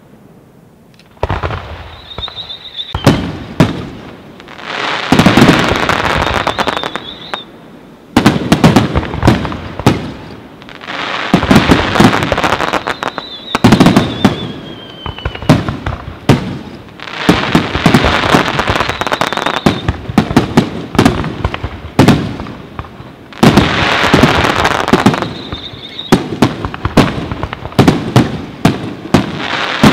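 Aerial fireworks display: sharp bangs of bursting shells and stretches of dense crackling, coming in waves with short lulls and starting about a second in. A high whistling tone comes and goes over the bursts, once falling in pitch.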